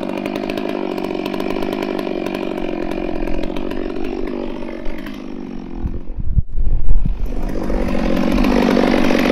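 Gas two-stroke chainsaw with a long 36-inch bar running, first finishing a cut through a log, then running on while carried. About six to seven seconds in there is loud low thumping and rumbling, after which the saw runs louder again.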